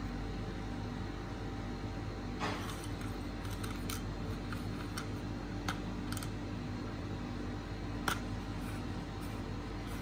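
Chocolate coffee beans clicking lightly against a small stainless steel bowl as gloved fingers pick them out: a handful of scattered small ticks, with a brief rustle about two seconds in, over a steady low hum.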